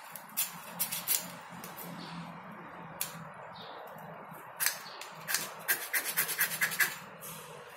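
Fire-starter rod scraped with a striker, throwing sparks: short, sharp scraping strokes, a few spaced apart and then a quick run of about eight strokes near the end.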